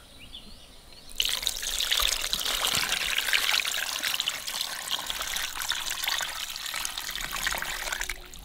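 Dark soy-sauce marinade poured over a whole chicken in a pot, splashing and trickling. The pour starts about a second in and stops shortly before the end.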